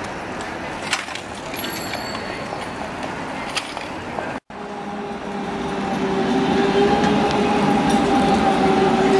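Street din, then a GVB tram drawing up and passing close on curved track: a steady whine that grows louder through the second half. There is a brief dropout in the sound about halfway through.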